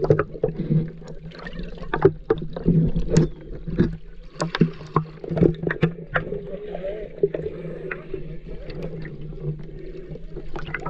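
Water heard through an action camera at and under the surface: sloshing and bubbling, with many sharp clicks and crackles, over a steady low hum.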